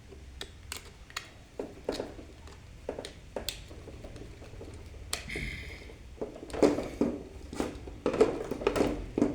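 Light clicks and taps from handling electrical wires and switch fittings, with a short scraping hiss about five seconds in and louder knocks near the end.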